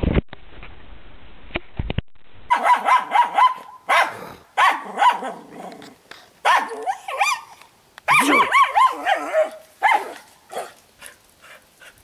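A dog barking in quick runs of short barks at a squirrel it has chased up a tree, starting about two seconds in and breaking off now and then.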